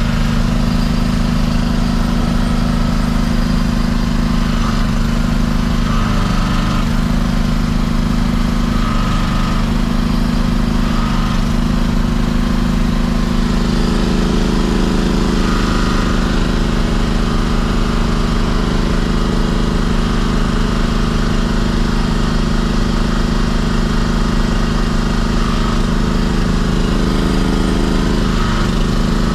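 Small engine of a LUKAS hydraulic power unit running steadily and driving the pump for a hydraulic rescue cutter. Its note changes slightly several times as the cutter's control handle is worked and the blades open under hydraulic pressure.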